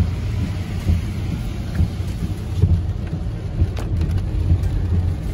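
Low road rumble of a car driving, heard from inside the cabin, with uneven small thumps and bumps.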